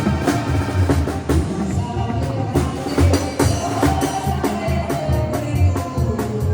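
Loud live-sounding band music with a steady drum beat and a heavy bass line.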